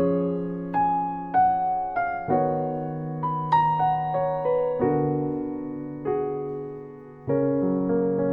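Background music: a slow, gentle solo piano melody, each note struck and fading, over held bass notes.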